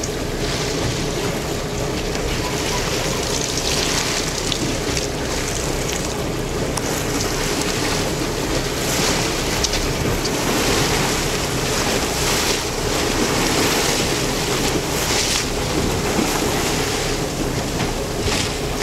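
Wind buffeting the microphone over the wash of choppy sea water, in gusts every few seconds, with a steady faint hum underneath.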